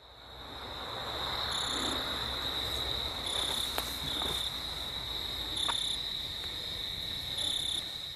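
Crickets trilling steadily, with short higher chirps recurring every second or two; the chorus fades in over the first second.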